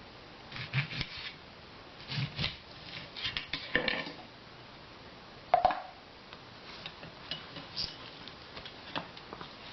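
Kitchen utensils and dishes being handled: scattered taps, clicks and short knocks, with one sharp ringing clink about five and a half seconds in and lighter ticks after it.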